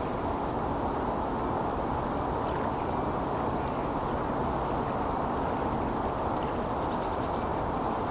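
Kingfisher calling: a rapid series of short, high, thin piping notes for about the first three seconds, over a steady rushing background. A brief cluster of high clicks comes near the end.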